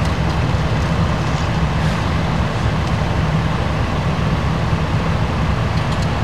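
A large vehicle engine idling with a steady low rumble.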